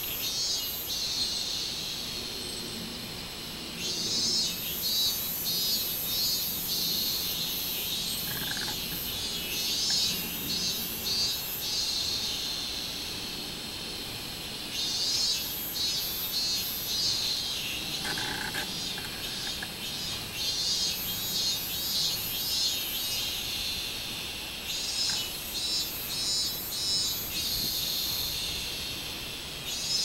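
Robust cicada (minmin-zemi) singing: phrases of rapid pulses that swell and fade every few seconds over a continuous high buzz.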